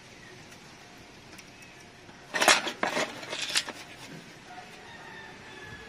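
A short run of metallic clinks and knocks, about a second and a half long in the middle, as metal parts and tools are handled against an aluminium basin during carburetor cleaning.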